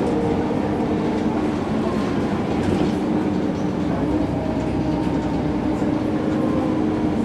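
MAN NG 313 articulated city bus under way, its diesel drivetrain running with a steady drone and a tone that drops slightly in pitch.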